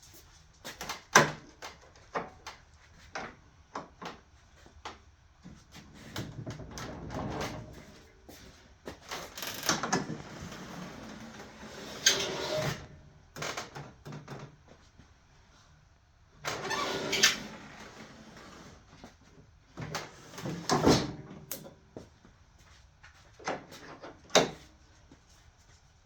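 Hard items being handled on a shop tool cart: a series of sharp knocks and clanks, with several scraping or rolling stretches lasting a second or two each.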